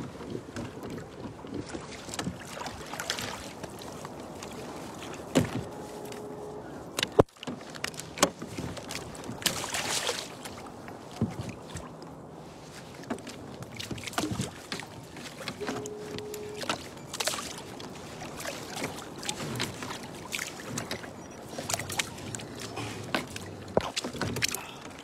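Handling noise on a fishing kayak: gear knocking and clicking against the hull over a low wash of water and wind, with a sharp knock about seven seconds in. A short steady tone sounds twice.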